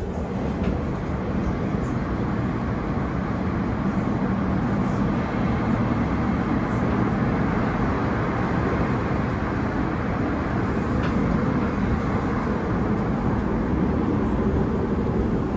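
Class 345 Elizabeth line electric train running at speed, heard from inside the carriage: a steady rumble and rush of wheels on rail.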